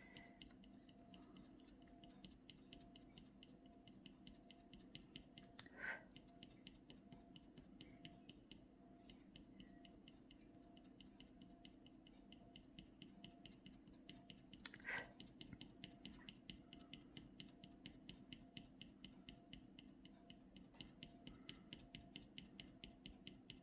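Faint, quick little scratches of a pointed tool on an Ampersand clay scratchboard: short strokes ticking several times a second, with two louder clicks about six and fifteen seconds in.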